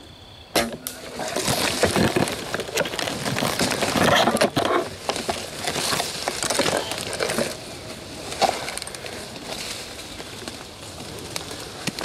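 Brush and leaves rustling and crunching close to the microphone: an uneven run of crackles that starts with a sharp click about half a second in.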